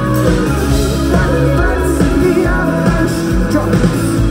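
Live rock band playing electric guitar, bass guitar and drum kit, with singing over it, picked up from the crowd through the stage PA.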